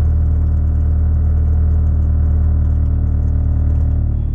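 2007 Mazda 3 engine running with a loud low drone and a fine, buzzing rattle, the car vibrating heavily: the sign of a worn engine mount. The drone drops slightly and changes about four seconds in.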